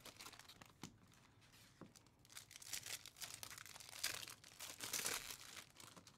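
Foil wrapper of a trading-card pack crinkling and tearing as it is pulled open by hand, faint, in a few short spells.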